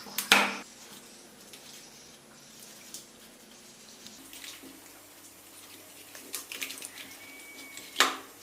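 A boning knife cutting into raw chicken legs on a board: soft, wet slicing and scraping with scattered small clicks, and two short, louder strokes, one just after the start and one near the end.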